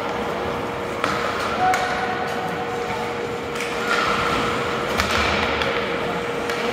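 Ice hockey play in an arena: sharp clacks of sticks on the puck and the puck off the boards, about half a dozen in a few seconds, over a steady hum.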